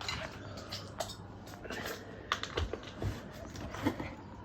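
GEC A-1 1200 mm ceiling fan running on its regulator with a steady low motor hum, overlaid by scattered light clicks and taps at irregular intervals.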